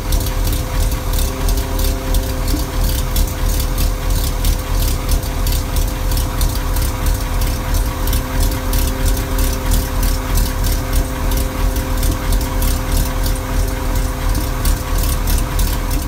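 Toyota Tundra 5.7-litre V8 exhaust at idle with a "ghost cam" tune: an uneven, choppy "broom, broom" lope like a big high-lift camshaft, though the camshafts are stock and the lope is made by the engine tune. A steady whine from the truck's external fuel pump runs underneath.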